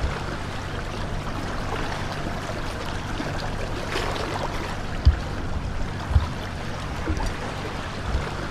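Shallow seawater washing and trickling at the shoreline, with two dull low thumps about five and six seconds in.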